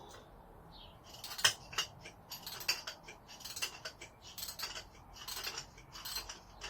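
Metal hand tools clicking and clinking irregularly as a socket wrench works loose a clamp bolt on a motorcycle's front fork. The clicks start about a second in; the first is the loudest.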